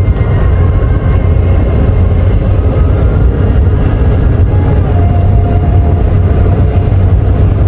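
Loud, steady low rumble with a faint hiss, of the kind heard from inside a moving vehicle; it does not rise or fall.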